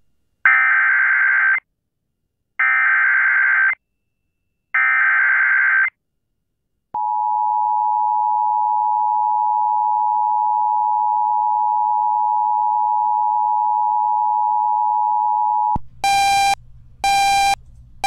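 Emergency Alert System activation: three roughly one-second bursts of the SAME digital header's warbling data tones, then the EAS two-tone attention signal held steady for about nine seconds. Near the end, short pulsed beeps come about once a second.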